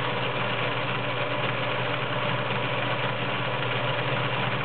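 Kenmore model 1781 all-metal-geared sewing machine running steadily, stitching a stretch rickrack pattern with the fabric feeding forward and back.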